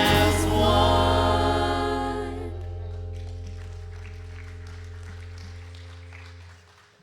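The end of a live worship song: voices sing the final notes, then the band's held last chord with a deep bass note fades slowly away.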